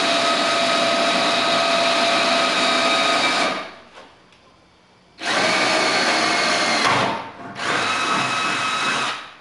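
Cordless drill boring a bolt hole through the sheet-metal side of a pickup bed. It runs with a steady whine for about three and a half seconds, stops for about a second and a half, then runs again for about four seconds with a brief dip near the middle of that run.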